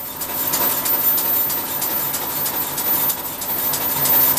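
Miniature Corpet-Louvet 0-3-0 tank locomotive running on compressed air with its wheels free on a stand: a fast run of exhaust beats over a steady hiss of air.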